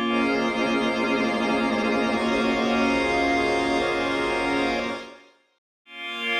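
Synthesizer pad from Ableton's Drift synth holding a sustained chord, which fades out about five seconds in; after a brief silence another pad chord starts near the end.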